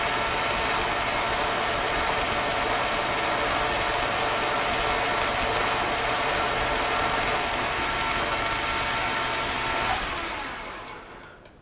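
Metal lathe running steadily with a steady whine from its drive, taking a power-feed finishing cut on a pipe plug. About ten seconds in there is a click and the machine is switched off, spinning down over a second or so.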